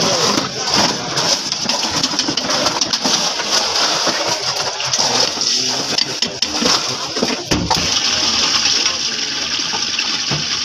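Lassi being churned by a drill-press mixer spindle in a steel jug: a steady sloshing, gushing rush of liquid, after yogurt is worked by hand and poured in from a steel vessel.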